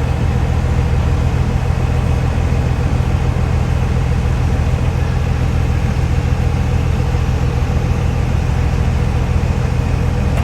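A vehicle engine running steadily: an unbroken low drone with a faint steady higher tone over it.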